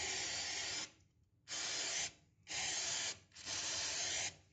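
Aerosol can of furniture polish spraying in four short hissing bursts into the gap around a toilet outlet fitting, lubricating the seal to stop a slight leak.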